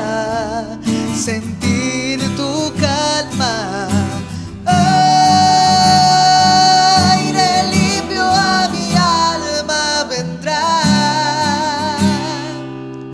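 Live acoustic worship song: a strummed acoustic guitar under a woman's lead voice and men's harmony voices. From about five seconds in the voices hold one long note with vibrato for about five seconds.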